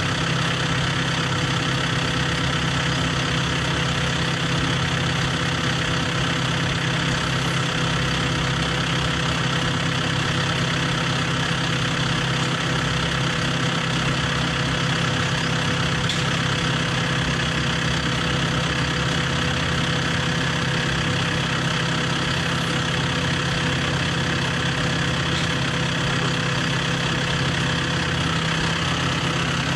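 John Deere tractor engine idling steadily.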